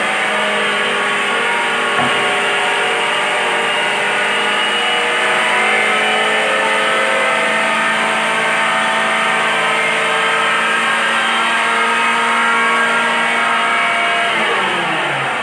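HM chilli grinder (masala pulveriser) running with a steady, dense whine, with a single knock about two seconds in. Near the end its pitch starts to fall as the machine begins to run down.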